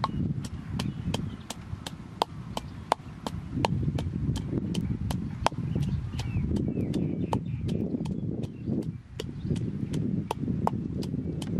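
Wooden pestle pounding red chilies and garlic in a mortar: a steady beat of sharp knocks, about three a second, over the duller crushing of the mash.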